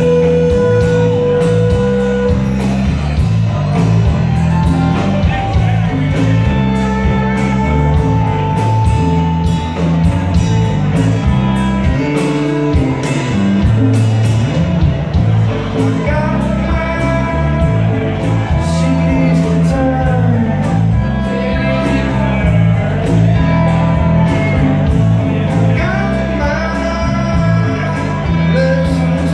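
Live band playing through a PA: electric guitars, bass guitar, drums and keyboards, with a man singing at times. It is a full, bass-heavy mix with held notes over a steady groove.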